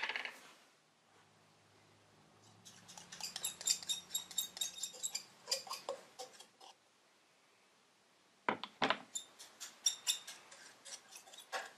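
A paintbrush stirring and scraping acrylic paint in a small glass jar, ticking and clinking against the glass in quick runs, in two spells with a pause of about two seconds between them.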